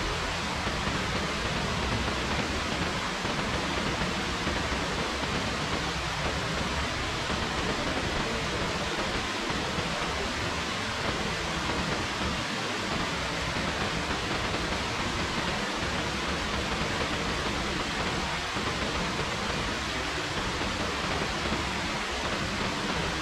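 Rain falling steadily: an even hiss that stays the same throughout, with no separate drops, gusts or breaks.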